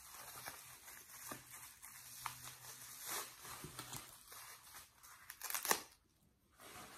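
Wrapping being torn and crinkled by hand as a small wrapped package is opened: scattered soft rustles, with one louder crackle near the end.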